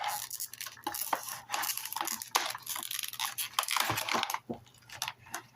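A product box and its packaging being opened and handled by hand: a busy, irregular run of rustling with small clicks and knocks, thinning out near the end.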